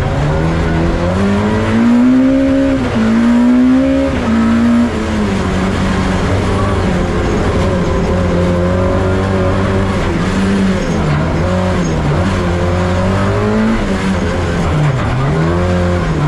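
Lexus IS200 rallycross car's engine heard from inside the cockpit at racing speed. It climbs through quick upshifts in the first few seconds, then falls and rises again and again as the driver lifts and gets back on the throttle through the corners.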